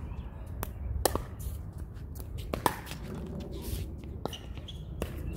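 Pickleball paddles striking a hard plastic ball: several sharp, hollow pocks at irregular intervals, under a steady low rumble.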